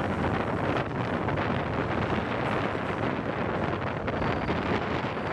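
Wind buffeting the microphone held out of the open window of a moving Rhaetian Railway train, over the steady running noise of the coaches on the track.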